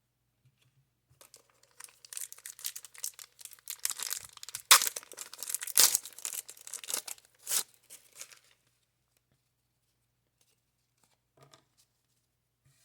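Wax-paper wrapper of a 1990 Score baseball card pack being torn open and crinkled: a run of crackling for about seven seconds, with a few sharp, louder rips in the middle.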